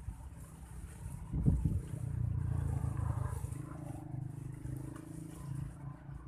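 A motor engine running, with a low rumble that swells about a second and a half in, stays loud for a couple of seconds, then eases off.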